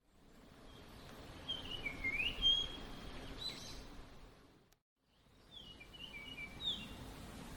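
Wild songbird calls in autumn–winter woodland: short chirps and quick gliding call notes, in two clusters separated by a brief silent gap, over steady outdoor background hiss.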